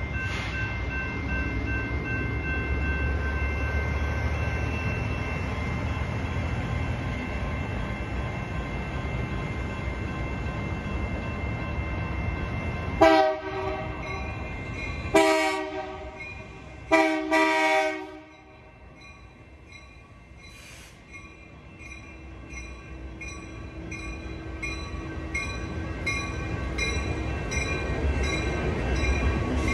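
Grade-crossing bell ringing steadily over a low rumble, then an approaching diesel freight locomotive's air horn: a short blast about 13 seconds in, followed by two longer ones. After the horn the bell's strikes stand out, about one and a half a second, as the locomotive's engine sound grows louder near the end.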